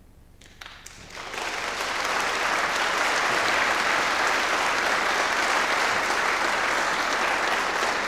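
Audience clapping in applause. It starts about a second in, after a brief hush, and holds steady.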